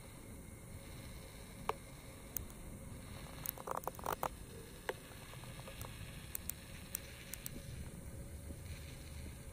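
Low steady rumble with a few scattered clicks, a short cluster of them about four seconds in: handling noise from a handheld camera moving through the car's cabin.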